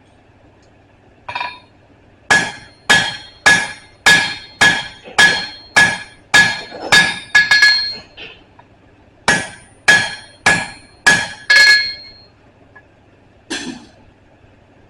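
Hand hammer striking steel on an anvil while forging a punch, each blow with a short metallic ring. A steady run of about a dozen blows comes two a second, then a pause, five more, and one last blow near the end.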